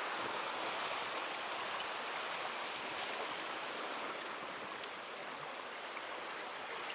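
Steady rush of sea waves washing against a concrete tetrapod breakwater.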